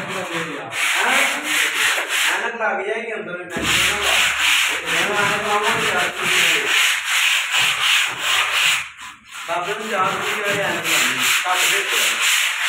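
Rough cement wall being scrubbed by hand: rhythmic scraping strokes, several a second, with a short pause about nine seconds in.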